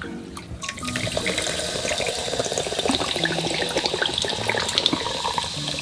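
Carbonated orange soda poured from a can over ice into a glass mug, starting about a second in. It is a steady pour with a dense fizzing crackle.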